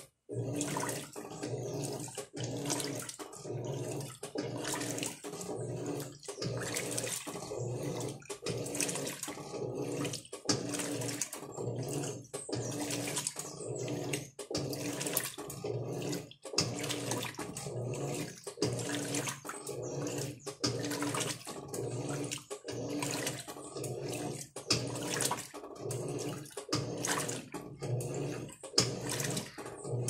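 Electrolux LM08 top-loading washing machine in its wash cycle, the agitator churning clothes through the water with a rhythmic sloshing, about three strokes every two seconds. Under the slosh there is a motor hum with each stroke.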